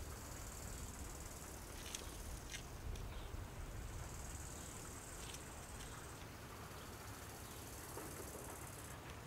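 Insects in the meadow grass chirring, a thin high buzz that comes and goes in stretches, with a few short chirps; a faint low rumble lies underneath.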